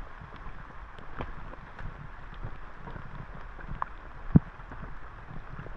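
Monsoon rain and wind noise on an action camera's microphone, with scattered light taps and one sharp knock about four seconds in.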